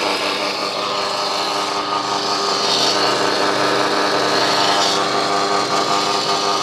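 Electric band saw running steadily, its motor giving a constant hum under the whir of the blade.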